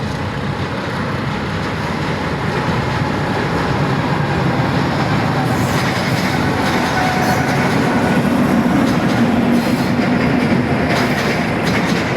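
Train running on the rails: a steady rumble that grows a little louder, with the clicking of wheels over rail joints from about halfway through.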